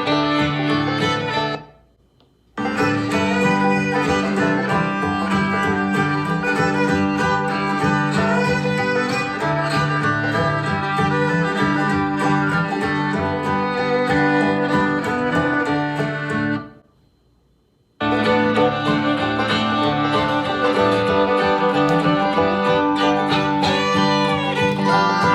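Fiddle-and-guitar country-style music played through Bose SoundLink portable Bluetooth speakers. It cuts out twice for about a second as playback switches between the two speakers. The middle stretch has noticeably less top-end treble than the stretches either side.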